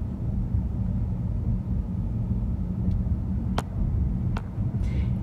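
Steady low rumble of road and engine noise heard from inside a moving car, with two light clicks past the middle.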